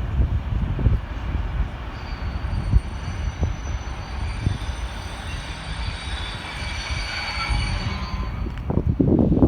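A train running past on the rails with a low rumble and irregular wheel knocks, and thin high squealing tones from the wheels in the middle. Near the end a louder rushing gust of wind hits the microphone.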